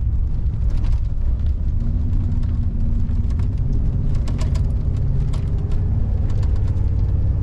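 Pickup truck driving on a dirt and gravel road, heard from inside the cab: a steady low drone of engine and tyres, with many light scattered ticks.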